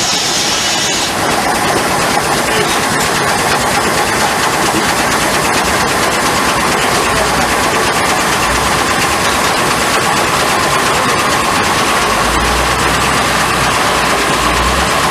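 Steam-powered sawmill machinery running steadily, a dense mechanical clatter with a whine that rises slowly in pitch from about six seconds in.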